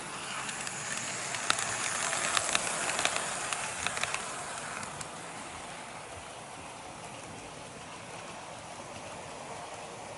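HO-scale model train, an EF81 electric locomotive hauling a passenger coach, rolling past close by on sectional track: a rising rolling hiss with a quick run of sharp clicks as the wheels cross the rail joints, then a softer steady running sound as it moves away.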